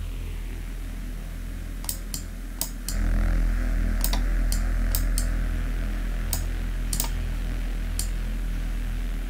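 Deep, dark synth pad from the Serum software synthesizer holding a steady low drone with a hissy, distorted upper layer that grows louder about three seconds in. Sharp computer-mouse clicks sound about a dozen times over it.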